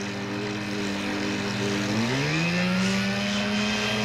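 Zenoah two-stroke gas engine of an RC boat running steadily, then about two seconds in its revs rise and hold at a higher speed.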